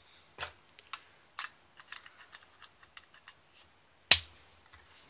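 Irregular small plastic clicks and taps from handling an Opel Astra G key fob, with one louder snap about four seconds in.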